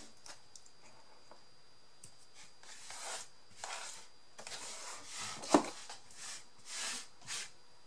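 Hands rubbing and handling craft materials in a run of soft swishes, with one sharp tap about five and a half seconds in.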